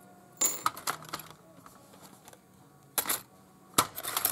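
Small metal word charms clinking against one another and against the metal tin as they are sorted through by hand. The clinks come in three short clusters: about half a second in, around three seconds in, and near the end.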